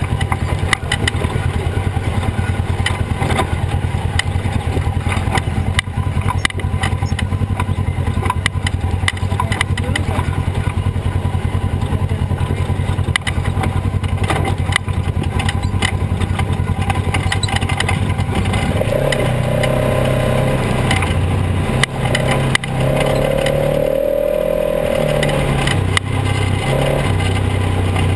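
Polaris RZR XP 900 side-by-side's twin-cylinder engine running steadily under way, with frequent rattles and knocks as the machine jolts over a rocky dirt trail. For several seconds about two-thirds of the way through, a higher tone joins in and the engine pitch shifts.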